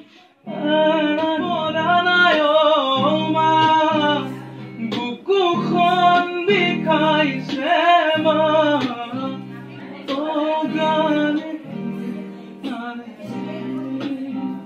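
A man singing while strumming an acoustic guitar, starting about half a second in; the song gets quieter in the last few seconds.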